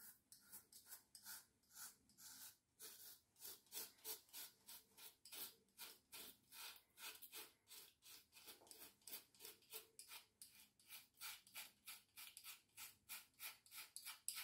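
Gillette Sensor 3 three-blade cartridge razor scraping through lathered beard stubble in short, quick strokes, about three a second, each a faint rasp.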